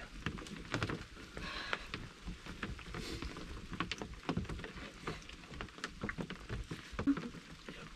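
Raindrops pattering on the roof of a wooden hunting blind: many small, irregular ticks.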